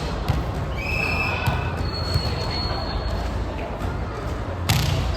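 Ambience of an amateur ball game: a steady wash of voices and court noise, with scattered thuds and two short high squeaks, and a louder hit near the end.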